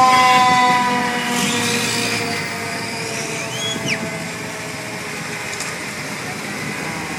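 Fire engine air horn sounding one long blast of several tones together. It is loudest at the start, and its pitch sinks slowly as it fades over about five seconds while the truck drives past.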